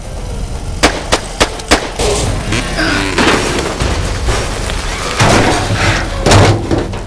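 Four sharp gunshot-like bangs in quick succession, about a third of a second apart. Then a heavy crash and clatter as a man falls onto stacked wooden pallets, with film music underneath.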